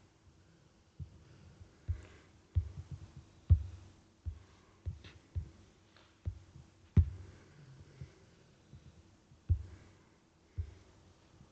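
Irregular low thumps and knocks of handling, about a dozen spread unevenly, over a faint steady hum.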